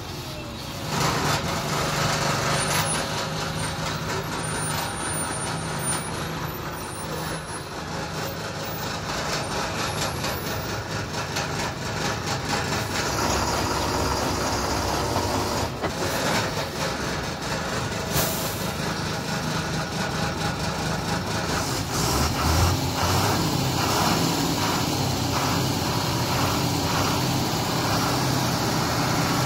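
Heavily loaded multi-axle lorry's diesel engine running steadily at low speed as the truck crawls round a hairpin bend, with a short hiss of air, like an air-brake release, about 18 seconds in.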